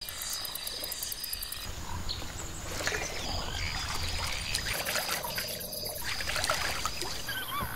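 Jungle ambience of insects and frogs calling: steady high insect trills with fast pulsing chirps, and a shrill steady buzz coming in near the end.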